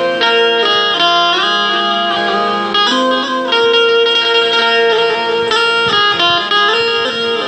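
Indian banjo (bulbul tarang) playing a song melody: metal strings picked while keys are pressed to stop them, giving a run of bright, ringing notes with a few short slides between notes and a lower note ringing on beneath.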